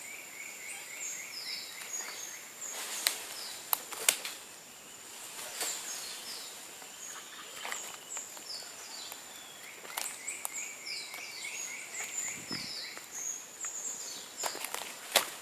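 Tropical forest ambience: a steady high insect drone under birds calling in quick runs of short chirping notes. Several sharp cracks and snaps are scattered through it, from branches as monkeys move in the tree.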